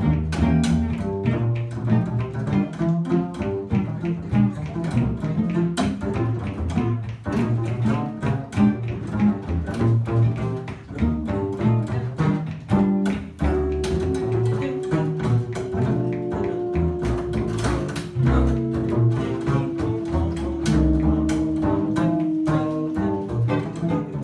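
Upright double bass plucked in quick running jazz lines, with the rest of a small jazz band. From a little past halfway, a few long held notes come in and step down in pitch.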